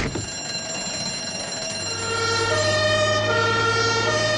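Two-tone emergency-vehicle siren (German 'tatütata' Martinshorn) alternating between a lower and a higher note about every three quarters of a second. It comes in clearly about two seconds in, over a steady low engine hum.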